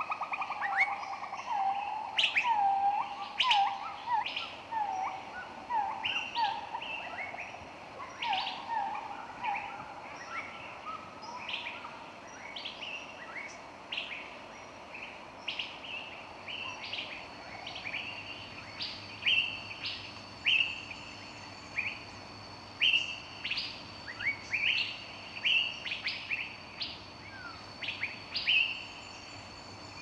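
Several small birds chirping and calling in a forest ambience. A lower, repeated call of about two notes a second runs through roughly the first eight seconds, and short, higher chirps keep coming through the rest.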